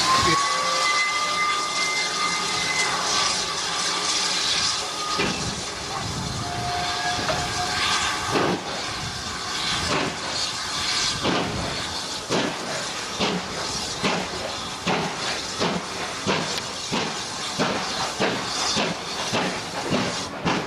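Steam locomotive pulling away from a halt: a whistle sounds for about three seconds, steam hisses, and the exhaust chuffs begin well over a second apart and quicken steadily as the train gathers speed.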